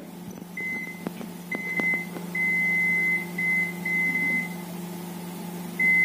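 IFB convection microwave oven's control panel beeping as its keypad buttons are pressed to set 200 °C and two minutes: about six beeps of one high tone, one held for most of a second, with faint button clicks, over a steady low hum.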